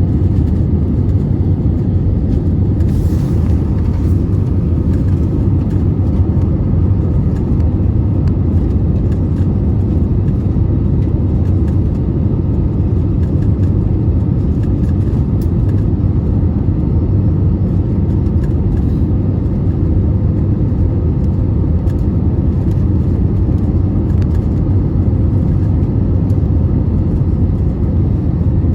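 Steady low rumble of an Airbus A320neo's engines and airflow, heard from inside the passenger cabin at a window seat.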